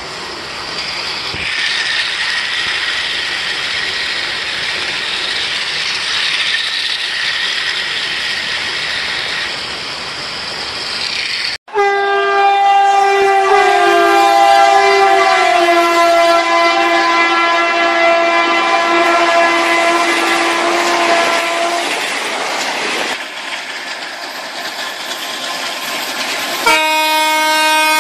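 Battery-operated toy train running on its track, then a long electronic horn sound from the toy lasting about ten seconds, its pitch sagging slightly. A second horn sound starts near the end.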